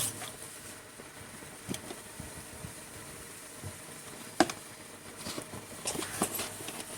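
Hand transfer pump being worked to pump gear oil into a rear differential filler hole: faint scattered clicks and knocks, with one sharper click about four and a half seconds in.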